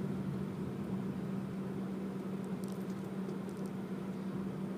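Steady drone of a car heard from inside the cabin, engine and road noise while driving, with a few faint ticks about three seconds in.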